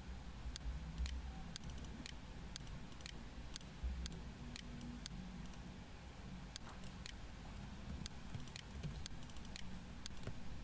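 Scattered, irregular clicking of a computer mouse and keys, some clicks coming in quick pairs, over a low steady hum.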